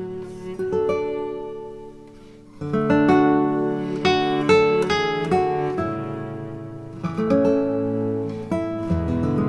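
Background music: acoustic guitar, plucked and strummed. It dies down about two seconds in, then comes back in strongly.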